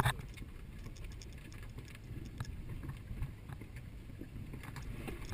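Faint, low rumble of an off-road vehicle's engine, with a few light ticks.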